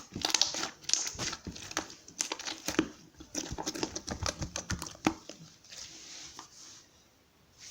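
Irregular crinkling and rustling with many sharp clicks, dying away about five seconds in.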